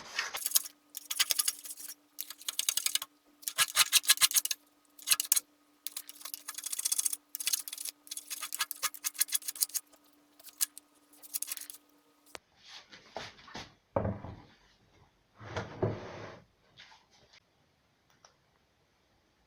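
Hand rasp strokes shaping wood, about a second each in quick succession. After a cut about twelve seconds in come a few slower, duller scraping strokes, then scattered light ticks.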